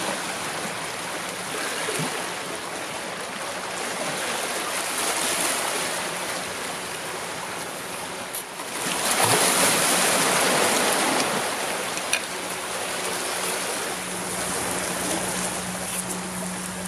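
Sea surf washing over a rocky shore: a steady hiss of water that swells louder for a couple of seconds in the middle.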